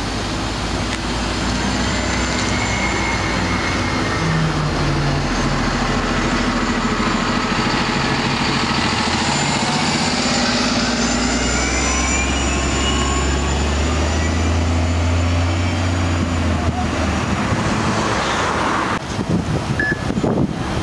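Orion VII city bus's engine running as it pulls away from the stop, its low drone building up about halfway through, over steady street traffic.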